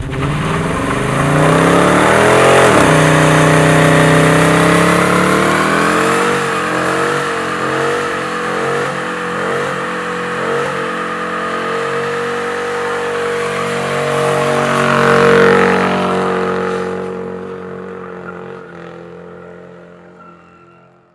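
Loud V8 engine of a car accelerating hard, its pitch climbing over the first few seconds, then running high with quick wavering rises and falls and one more surge, before fading away.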